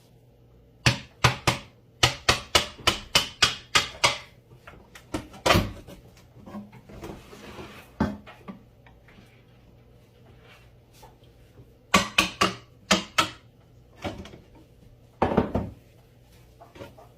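A shipping box and its packaging being opened and handled by hand: a quick run of sharp knocks and crackles, then quieter rustling, then more clusters of knocks and rips.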